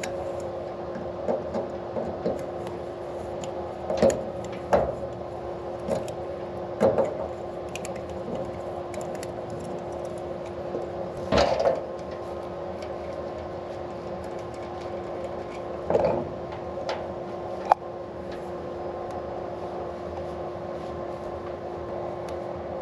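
Steady electrical-sounding hum with scattered knocks and clinks from metal winch gearbox parts being handled and taken apart; the loudest knock comes about halfway through.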